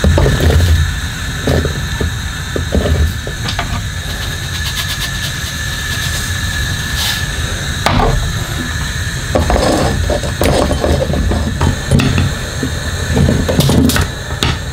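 Kitchen handling sounds: knocks and clatters, busiest in the second half, as diced apple and pear are tipped from a plate into a stainless steel saucepan. A steady hum runs underneath.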